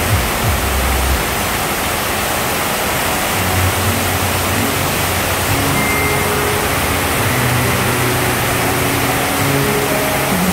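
Heavy rain pouring down onto flooded pavement in a steady, loud hiss. From about three seconds in, a motorcycle engine runs underneath the rain.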